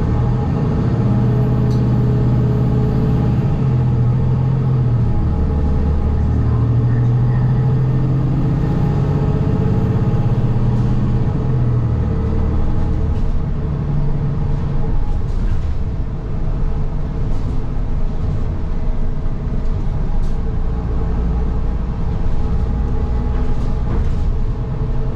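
City transit bus running, heard from inside: a low engine and drivetrain note that holds for a few seconds, drops and comes back as the bus speeds up and slows, with short rattles and clicks from about halfway through.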